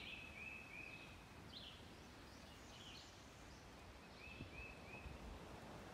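Faint songbird calling over quiet background hiss: a quick run of three short high notes, repeated once about four seconds later, with a few other faint chirps between.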